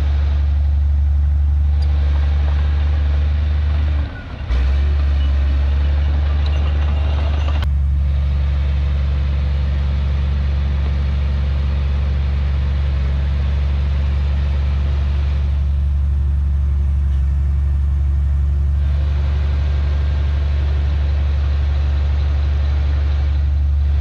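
Bulldozer's diesel engine running steadily with a deep, even drone. The sound briefly drops out about four seconds in.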